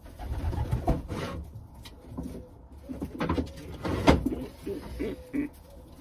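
Racing pigeons cooing in the loft, low murmuring coos, with a few sharp knocks and some rustling about one, three and four seconds in.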